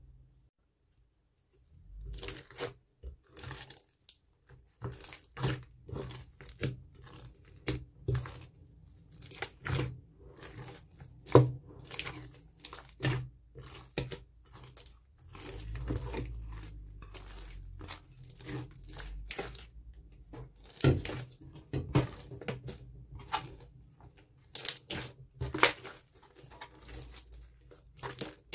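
Hands squeezing and kneading wet slime packed with small beads, making dense, irregular sticky pops and clicks with a few louder snaps. The sound starts about two seconds in, after a moment of near silence.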